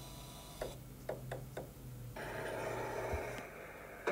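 Faint ticking clicks, about four a second, over a low hum; about two seconds in the ticking gives way to a hiss lasting about a second.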